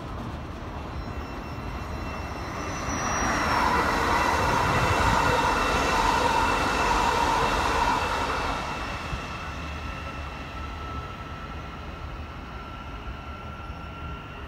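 LNER Azuma express train passing through the station. Its rumble and humming build up about three seconds in, stay loud for several seconds, then fade as it moves away.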